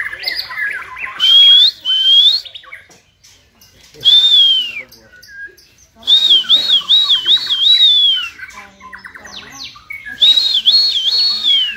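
Caged white-rumped shamas singing loud, clear whistled phrases with short pauses between them. Two of the phrases are quick runs of repeated rising-and-falling notes. Between phrases come softer scratchy chattering notes.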